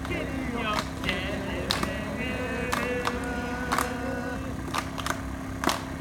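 Sharp clacks about once a second, over wavering singing voices and a steady low hum.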